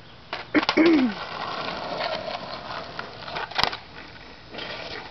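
Skateboard wheels rolling on rough asphalt with a steady rumble, then a single sharp clack of the board striking the pavement about three and a half seconds in and a few more knocks near the end. A short falling voice-like sound comes about a second in.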